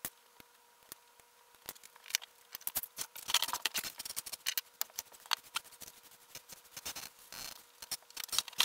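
A few sharp snips of modelling side cutters trimming plastic kit parts. From about two seconds in, these give way to a dense run of rapid clicking and scraping as small plastic shavings are swept across a wooden desktop. The run is sped up about eightfold.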